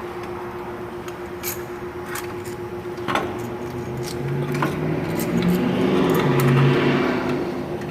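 A few sharp metal clicks of tools, then about four seconds in a power ratchet runs for about three seconds, swelling and fading, as it drives down a mounting bolt on a new AC compressor.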